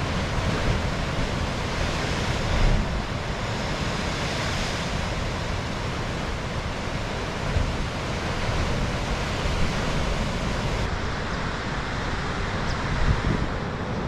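Wind buffeting the microphone outdoors: a steady, loud rushing noise with gusty low rumble, the hiss in the upper range easing off about eleven seconds in.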